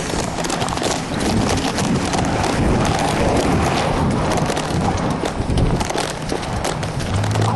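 Rubbing, scraping and knocking of a handheld camera's microphone against clothing as it is carried by someone walking, with many sharp clicks and bumps throughout.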